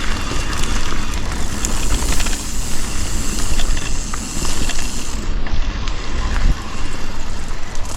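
Mountain bike being ridden along a dirt forest trail: tyres rolling and the bike rattling over roots and rocks, with wind buffeting the microphone.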